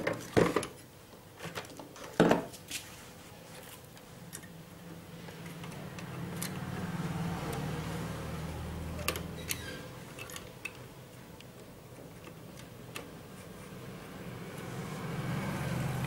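A few sharp knocks and clicks from hands handling an opened CRT TV chassis and its wiring, with scattered lighter ticks afterwards. Under them a low hum builds from about four seconds in and grows toward the end.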